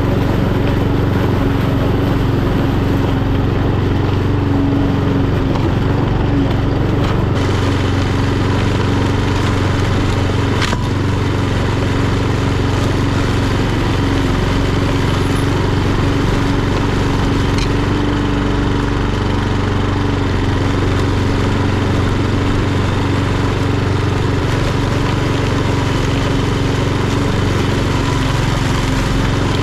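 Etesia Pro46 walk-behind lawnmower's Honda GCVx170 single-cylinder four-stroke engine running steadily under mowing load, with a single sharp click about ten seconds in.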